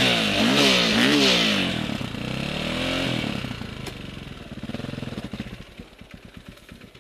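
Dirt bike engine revved hard twice, pitch sweeping up and down, then sagging to a lower labouring note as the bike goes into brush. Near the end it dies down to slow, separate firing pulses and fades out as the engine stops.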